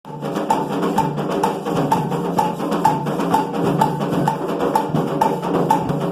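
Music with a steady percussive beat: a woodblock-like tick about twice a second over a sustained low bass note.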